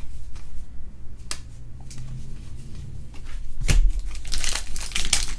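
Baseball trading cards being flipped through by hand, cardboard sliding and flicking against cardboard in short papery swishes and clicks. The swishes are sparse at first and come quickly, one after another, in the last second and a half.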